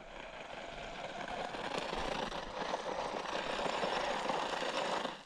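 A 1/14-scale RC monster truck with a 390 electric motor running over a gravel driveway, its tyres crunching through the loose gravel. The noise grows louder and then stops abruptly at the end.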